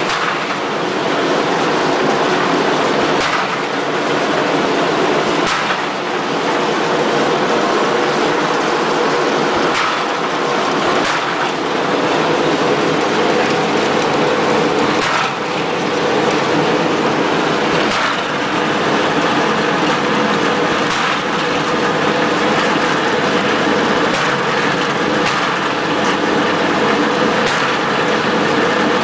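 Ball-kicking test machine running steadily, with a sharp knock of a ball being struck every few seconds, part of an endurance test of thousands of kicks on a football.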